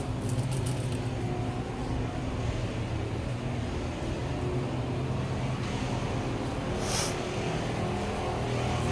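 Steady low engine drone, like a running vehicle heard from inside, with a short hiss about seven seconds in.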